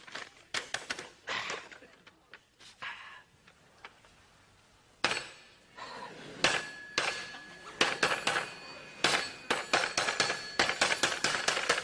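A run of knocks and clangs, a few at first, then coming thick and fast from about five seconds in, some ringing briefly like struck metal or crockery.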